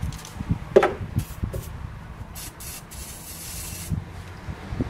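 Aerosol rust remover hissing from a spray can in several short squirts, then one longer spray about three seconds in, onto a seized screw. A brief sharp knock just under a second in and a few light handling knocks.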